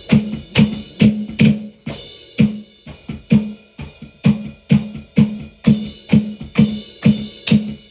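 Music: an instrumental stretch of a song carried by a drum beat, with punchy drum hits about twice a second in a steady rhythm.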